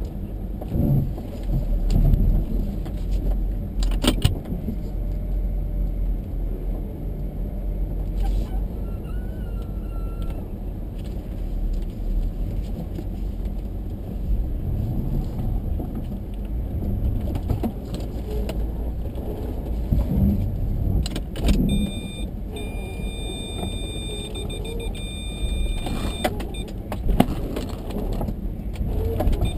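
Jeep Grand Cherokee driving slowly over rough off-road ground, heard from inside the cabin: a steady low engine and road rumble with jingling rattles, and a few sharp knocks as it goes over bumps.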